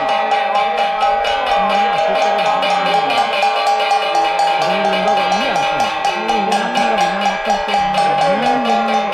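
Bell-like metal percussion struck in a steady rhythm, about four strikes a second, ringing on between strikes, with a chanting voice underneath that rises and falls.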